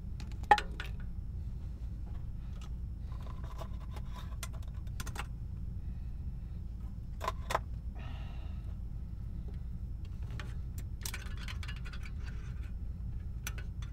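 Scattered small clicks and light scraping of small hard objects being handled, the sharpest click about half a second in and a quick double click about halfway through, over a steady low hum.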